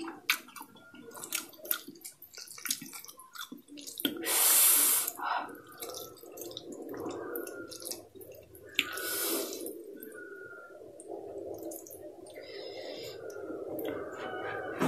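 A person slurping and chewing saucy spicy instant noodles: two long wet slurps, about four and about nine seconds in, with moist chewing and small mouth clicks between them.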